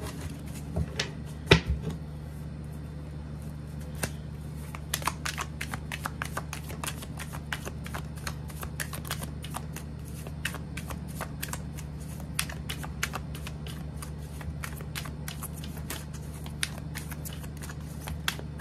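A deck of tarot cards being shuffled by hand: a long run of quick card clicks, sparse at first and then dense, with one louder snap about a second and a half in.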